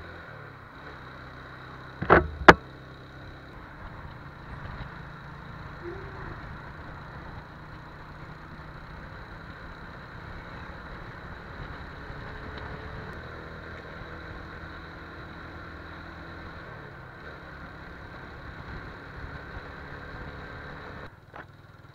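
TVS Apache RTR 180's single-cylinder engine running steadily at road speed, heard from on the bike with road and wind noise. Two sharp knocks come about two seconds in, and the sound gets quieter near the end.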